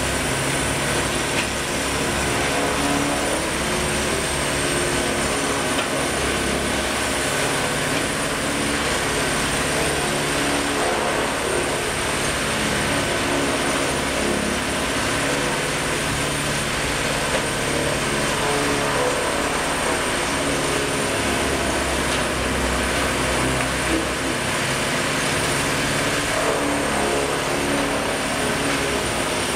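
Morbark tub grinder running under load, its diesel engine and hammermill grinding logs and brush in a steady, dense mechanical din. A thin, steady high whine runs through it.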